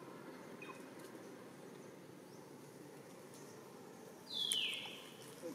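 A single short, high animal call about four seconds in that starts high and slides down in pitch, over a faint steady background.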